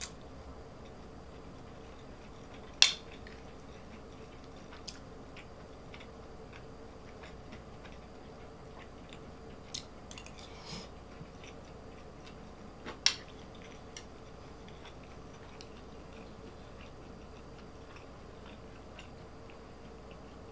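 Eating sounds: a utensil clicking against a plate a few times, sharpest about 3 seconds in and again about 13 seconds in, over a steady faint hum.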